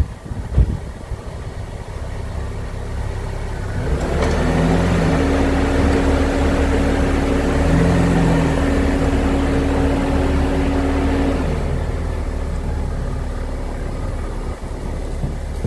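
Snow blower engine running at a steady pitch; it grows louder about four seconds in and eases off again after about eleven seconds.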